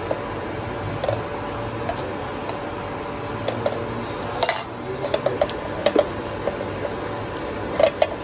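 Steel spoon scraping and clinking lightly as paneer stuffing is scooped from a bowl and pressed onto rolled dough, in scattered short clinks, the loudest about four and a half seconds in, over a steady faint hum.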